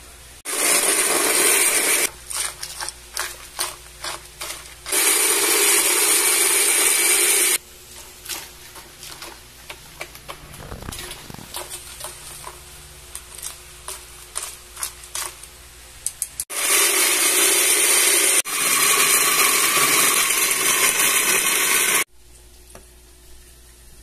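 Countertop blender with a glass jar running in four short bursts, blending mango, milk and ice. Between the bursts there are light knocks and clicks from the jar being handled.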